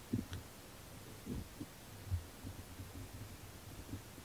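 Handling noise from the camera being moved about: a few faint, low thuds and bumps, with one short click about a third of a second in.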